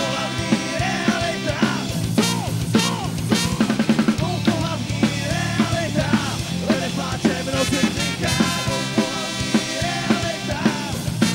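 Live punk rock band playing: electric guitar and bass over a drum kit keeping a steady beat.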